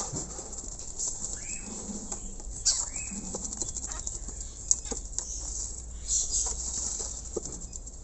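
Javan myna moving about in its wire cage, with wing flutters and two short rising-and-falling chirps. Scattered clicks and rattles come as the bottom tray is slid back into the cage, the sharpest about two-thirds of the way through.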